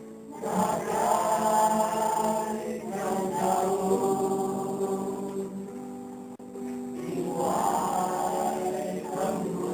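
Mixed choir of men and women singing together in several sung phrases. The singing starts about half a second in and breaks off briefly about six and a half seconds in before the next phrase.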